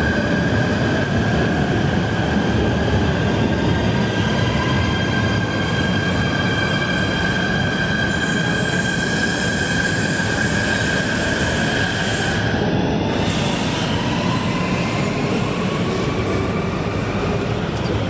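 Metro train running along an underground platform: steady rumble and rail noise with a high, steady whine that cuts off suddenly about twelve seconds in, and fainter whines gliding upward in pitch.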